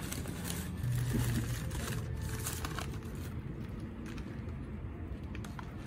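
Packing paper and plastic wrapping crinkling and rustling as items are handled and unwrapped from a cardboard box, with a few light handling knocks. Busiest in the first three seconds, quieter after.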